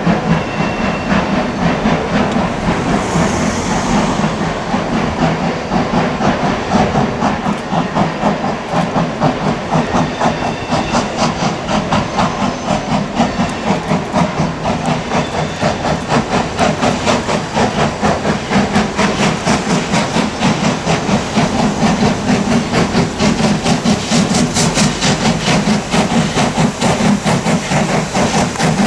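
Wilmington & Western No. 58 steam locomotive chuffing in a fast, even beat of about four exhaust beats a second, with steam hiss.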